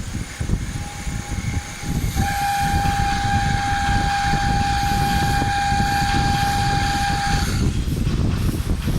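Mini CNC wood lathe running over a steady mechanical rumble. From about two seconds in, a loud steady high-pitched whine sounds for about five seconds, then stops.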